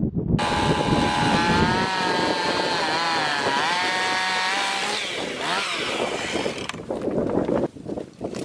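Chainsaw engine running at high revs, its pitch wavering and dipping, then cutting off suddenly about seven seconds in.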